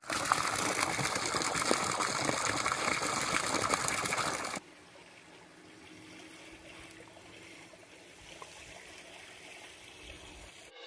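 Water pouring out of a bamboo pipe and splashing into a flooded rice paddy, a steady gushing splash. It cuts off abruptly after about four and a half seconds, leaving only faint outdoor background.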